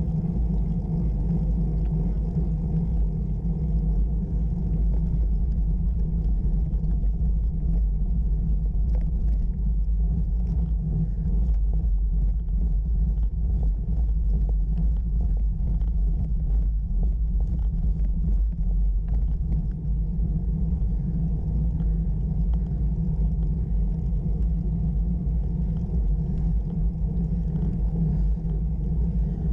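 Steady low rumble of road vibration and wind noise picked up by a camera mounted on a bicycle riding up a rough gravel-and-tarmac track, with faint scattered ticks.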